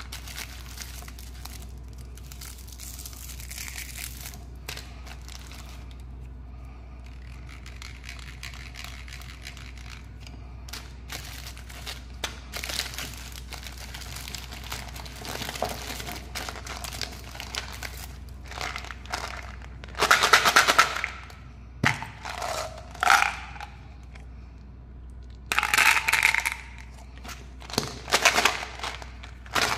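Hands rummaging through a pile of wrapped candies and plastic toys: wrappers crinkling and hard plastic pieces clicking against each other, in irregular spells, with a few louder rustling handfuls in the second half.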